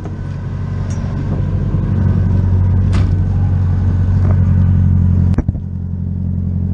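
Nissan 240SX's straight-piped SR20DET engine running at an even pitch, getting louder over the first couple of seconds and then holding steady. There is a sharp knock about three seconds in, and another about five and a half seconds in, just before a brief dip in the engine sound.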